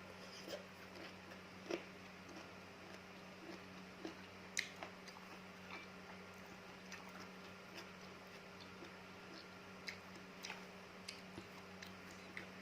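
Chewing raw fruit from a rujak with palm sugar chilli sauce: soft, irregular crunches and mouth clicks, with a faint steady hum underneath.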